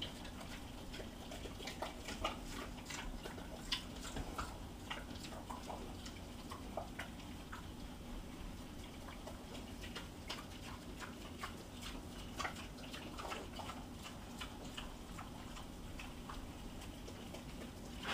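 Two pigs eating pickled beets and eggs from metal pans: irregular wet chewing and smacking, with quick clicks of snouts and teeth against the pans, over a steady low hum.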